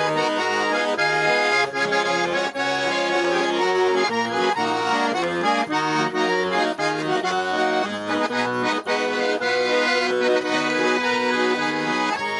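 Accordion playing an instrumental break in a Russian pop song: a melody of held notes over a stepping bass line, with no singing.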